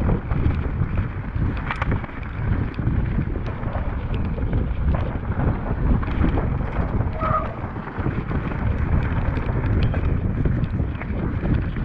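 Wind rushing over the microphone and a mountain bike's tyres rolling fast over a dirt and gravel trail, with frequent clicks and knocks from the bike as it runs over bumps.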